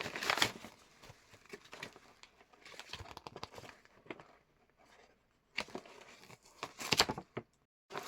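Gift wrapping being crinkled and torn open by hand in a series of irregular crackling rustles, loudest near the start and again about seven seconds in, cutting out to dead silence twice.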